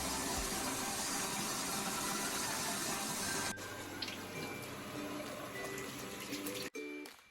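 Water running steadily, stopping abruptly about three and a half seconds in, with faint background music underneath.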